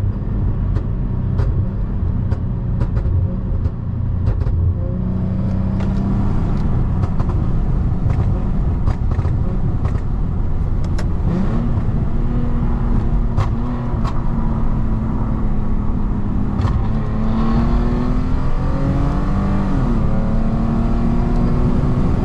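Lexus IS250's 2.5-litre V6 running while the car is driven, its pitch rising under acceleration about twelve seconds in and again near the end. Scattered sharp exhaust pops sound over it, the pops and bangs from its M-Force ECU tune.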